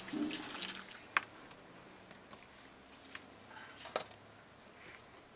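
Water pouring and splashing from a metal watering can onto potted plants for about a second. A few light separate clicks and taps follow.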